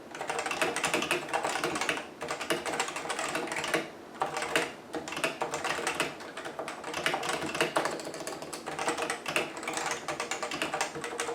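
Continuous typing on a Cooler Master CM Storm Novatouch TKL keyboard with Topre-style hybrid capacitive switches (rubber dome over a spring): a dense run of soft, muted keystrokes, much quieter than scratchy mechanical switches, with short breaks about 2 and 4 seconds in.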